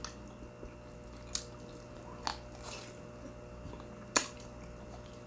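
Mouth sounds of someone eating: quiet chewing broken by a few short, sharp wet smacks and clicks, the loudest about four seconds in.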